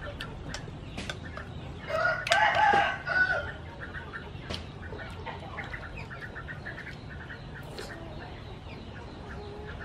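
A rooster crowing once, loud, starting about two seconds in, followed by a rapid run of short high notes that keeps going through most of the rest.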